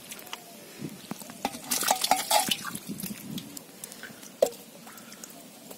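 A hand groping through wet mud and shallow water, squelching and splashing, with a louder burst of splashing about two seconds in and a sharp knock a little after four seconds.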